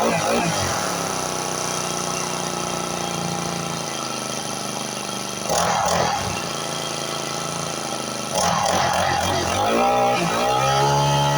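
Small four-stroke grass cutter engine running with diesel in its crankcase to flush out the old oil. It is throttled up briefly about halfway through, then opened up again, revving higher near the end.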